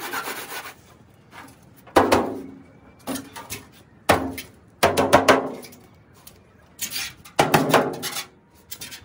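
An abrasive scuff pad rubs on the fender's undercoating for a moment and stops. Then the loose steel car fender is lifted and turned over on its metal stand, giving a series of loud knocks and clatters of sheet metal about once a second.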